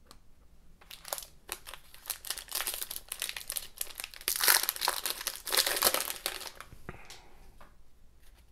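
A trading-card pack's wrapper being torn open and crinkled in the hands, a run of crackling rustles that is loudest about halfway through and dies down near the end as the cards are slid out.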